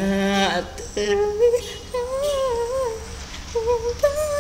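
A teenage boy's voice humming a slow tune without words, the notes gliding up and down, with a long held note starting near the end.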